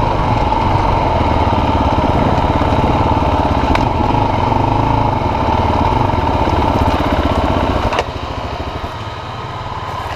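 KTM enduro motorcycle engine running steadily at low trail speed, with other dirt bikes close by. About eight seconds in the level drops sharply as the bikes stop and the engines settle to idle.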